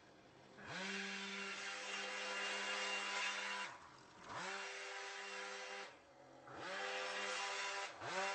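Small petrol power-tool engine running at high revs, the throttle let off and opened again every few seconds, so that the pitch dips and climbs back each time.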